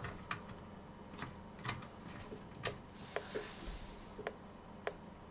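Hands handling small plastic computer hardware: a scattered series of light clicks and taps, the sharpest about two and a half seconds in.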